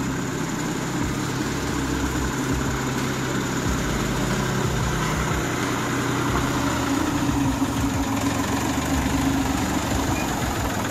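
Torpedo TD 45 06 S tractor's air-cooled Deutz-licence diesel engine running steadily at low revs.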